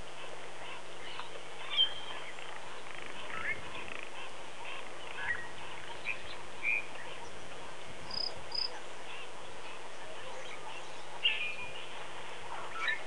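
Wild birds giving scattered short chirps and calls, a few seconds apart, over a steady background hiss. A pair of quick high notes comes about eight seconds in.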